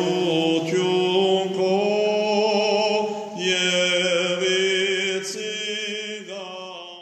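Armenian sacred chant: voices hold long, wavering notes that change pitch every second or few, fading out near the end.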